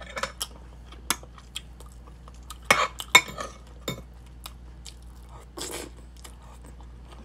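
A metal fork and spoon clinking and scraping against a plate while eating, in scattered sharp clinks. The loudest come in a quick cluster about three seconds in.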